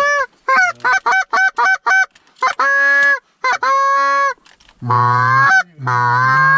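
Canada goose calling, blown on a hunter's hand-held goose call: a quick run of short clucks, then two longer honks, then two lower, drawn-out honks near the end, calling to an approaching flock.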